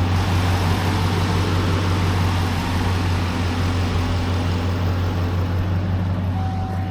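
Vehicle engine idling steadily, an even low hum. A faint steady tone comes in near the end.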